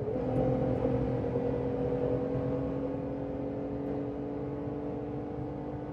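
Jeep Gladiator's 3.6-litre V6 engine pulling under throttle at highway speed, heard from inside the cabin: a steady engine drone that comes in at once and then eases slightly, over tyre and wind noise.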